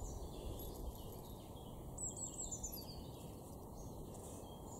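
Small birds chirping: a quick run of high chirps, each falling in pitch, about two seconds in, over steady low background noise.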